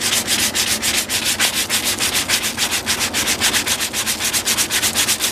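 400-grit sandpaper rubbed by hand over a hickory axe handle in quick back-and-forth strokes, several a second: a final fine-grit once-over of the wood. The sound cuts off suddenly at the end.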